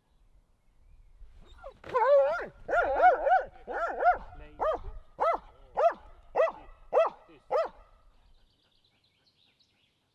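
Muzzled Belgian Malinois barking at the protection helper, a run of a dozen or so barks. They come quick and overlapping at first, then settle to about two a second before stopping near eight seconds in.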